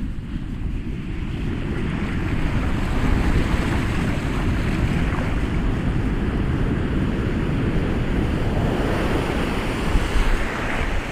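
Ocean waves washing in a continuous rushing surf, building a little over the first few seconds and then holding steady.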